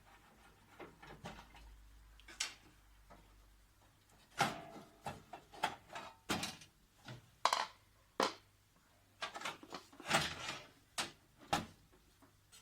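Irregular sharp plastic clicks and knocks from hands working on the copier's rear cover, about a dozen taps and clunks between roughly four and eleven and a half seconds in.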